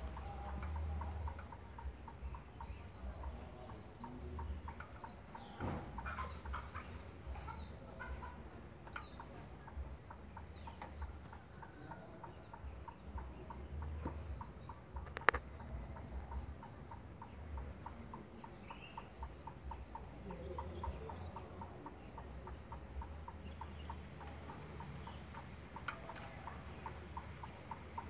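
Faint outdoor birds and insects: a steady high insect drone, scattered short bird chirps, and a regular ticking call repeating a couple of times a second. One sharp click comes about 15 seconds in.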